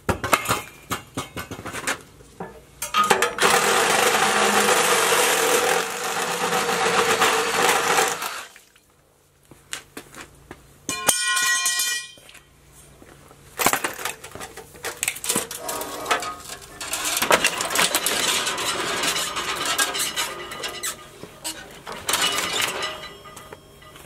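Metal clanking and knocking as an indirect water heater tank is pried and cut apart, with two long stretches of harsh tool noise.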